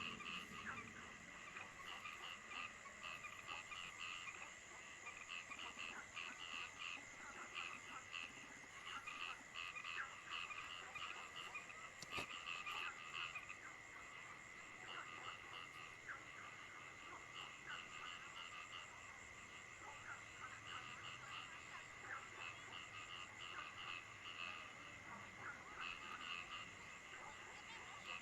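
A chorus of frogs calling, with quick repeated croaks several times a second over a steady high-pitched drone.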